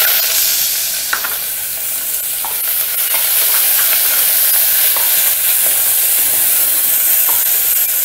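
Sliced onions sizzling loudly in hot oil in an open aluminium pressure cooker, a steady frying hiss from the moment they hit the oil. A wooden spatula stirring them gives a few faint knocks and scrapes.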